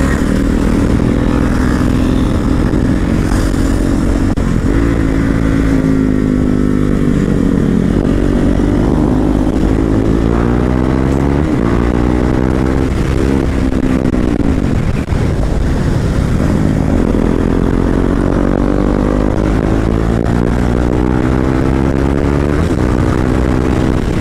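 KTM motorcycle's single-cylinder engine accelerating hard through the gears, its pitch climbing and then dropping back at each upshift, several times over, as the bike gathers speed.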